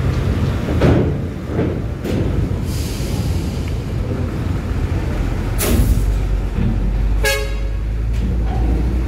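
Heavy diesel buses and trucks running at idle and creeping forward in a boarding queue, a steady low engine rumble. A short burst of hiss comes just after halfway, and a brief horn toot near the end.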